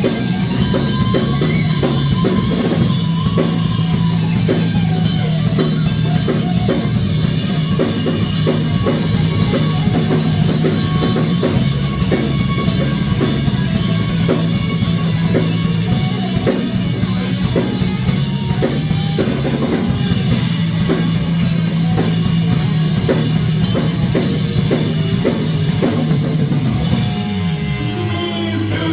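Rock music played on drum kit and electric guitar at a steady driving beat, with a sharply falling pitch sweep near the end.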